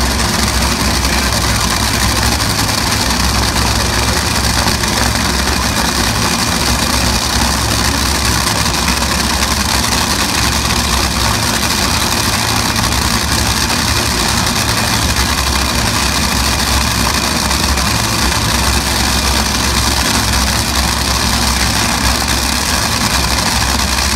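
Two Top Fuel dragster engines, supercharged V8s burning nitromethane, idling steadily with a heavy low rumble.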